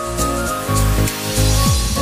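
Background music: an electronic track with a synth melody over held bass notes, with a falling bass sweep near the end.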